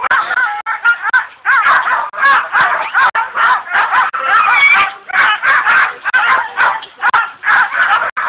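A team of sled dogs in harness barking and yelping excitedly, many dogs at once without a pause: the eager din of sled dogs waiting to be released at the start.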